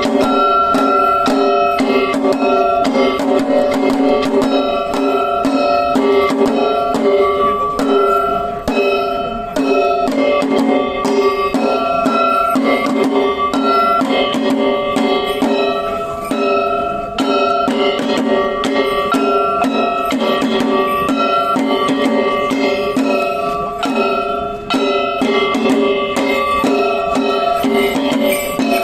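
Sanuki lion-dance festival music: drums and other percussion beaten in a fast, steady rhythm, with sustained ringing tones held over it.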